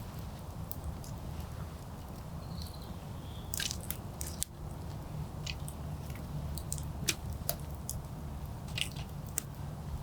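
Wood campfire burning, crackling with irregular sharp pops and snaps over a steady low rumble of the flames.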